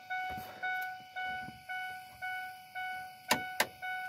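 1997 Ford F-150's in-cab warning chime dinging steadily, about two chimes a second. Two sharp clicks come near the end.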